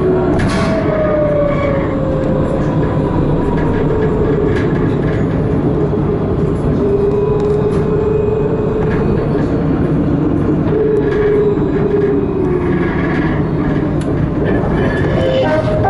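Tram running along its track, heard from the driver's cab: steady rolling and motor noise, with a whine that falls in pitch over the first couple of seconds and then holds fairly steady.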